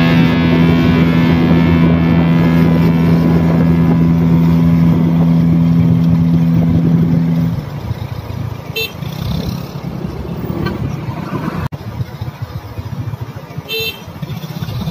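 Motorcycle ride: a loud, steady two-note drone holds for about the first seven and a half seconds and cuts off abruptly, leaving uneven wind and road rumble with two brief high chirps.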